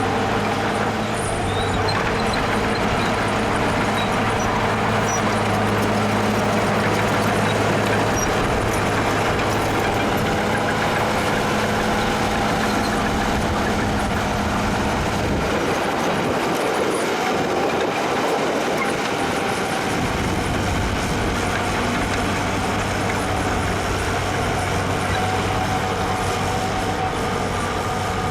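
Heavy diesel earthmoving machinery running steadily. The deep engine rumble drops away for a few seconds just past the middle, then returns.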